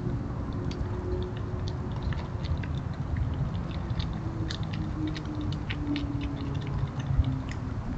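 Gray fox chewing food: a run of small, irregular crunching clicks over a steady low rumble.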